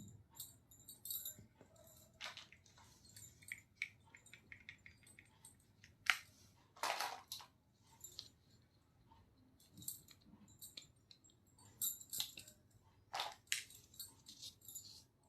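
Small plastic toy pieces and their packaging being handled: scattered light clicks and taps, with a few short crinkling rustles.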